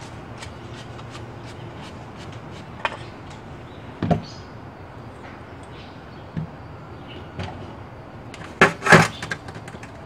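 Small clicks and scrapes of a screwdriver working the main jet out of a small-engine Mikuni carburetor, with a knock about four seconds in, over a steady low hum. Near the end, a cluster of loud clanks as the metal carburetor is set down in an aluminium parts tray.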